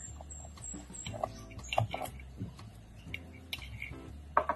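Cutlery clicking and scraping against plates as food is picked at and served: a series of short, irregular ticks and taps, with a sharper clack near the end.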